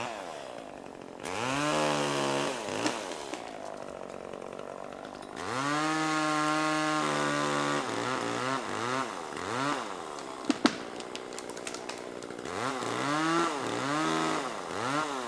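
Two-stroke chainsaw revving: held at high speed twice for a second or two at a time and dropping back to idle in between, then blipped in quick short revs. There is a single sharp knock a little past the middle.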